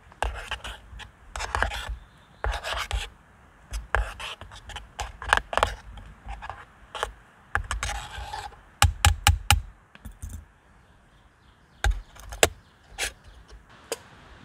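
Irregular scraping and rubbing strokes from hand work, each lasting a fraction of a second, with low thuds among them. About nine seconds in comes a quick run of four sharp strokes.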